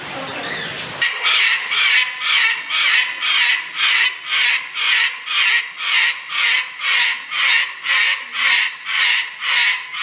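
White cockatoo calling over and over in a steady rhythm, about two calls a second, starting about a second in.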